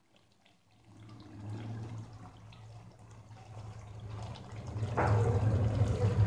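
Thick meat curry sizzling and bubbling in a pot on the stove, over a low steady hum. It starts about a second in and grows louder about five seconds in.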